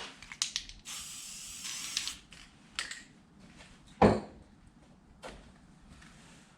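Aerosol can of epoxy enamel spray paint hissing in a burst of about a second. Light clicks come around it, and about four seconds in there is a single louder knock, as of the can or part being set down.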